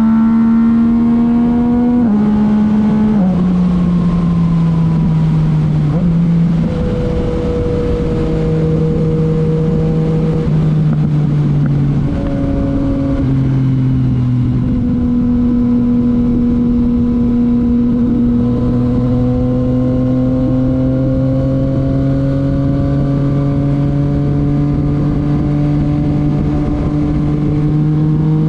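Yamaha MT-09's three-cylinder engine running through a titanium Akrapovič exhaust under way. Its pitch steps down a few times in the first several seconds, then holds a steady cruise that slowly sinks and rises again.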